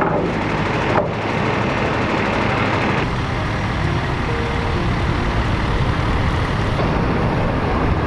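A truck's engine running steadily under dense noise, the sound shifting abruptly about one and three seconds in.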